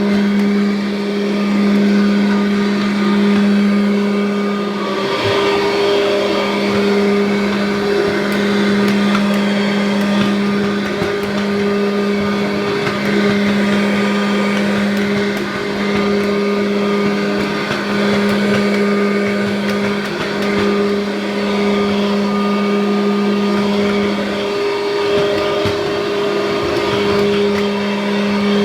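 1984 Kirby Heritage upright vacuum cleaner running steadily while vacuuming. Its motor gives a constant hum that wavers slightly in pitch every couple of seconds.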